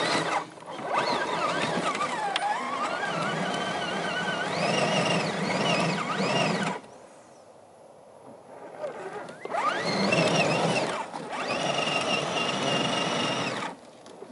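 Electric motor and gear drive of a 1:10 scale RC crawler whining under load as it climbs a steep dirt bank, the pitch rising and falling with the throttle. It goes quiet for about two seconds near the middle, picks up again, then stops near the end.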